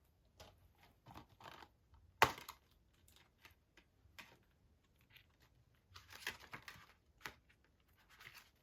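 A plastic Blu-ray case being handled and opened: scattered light clicks and short spells of rustling, with one sharp snap about two seconds in.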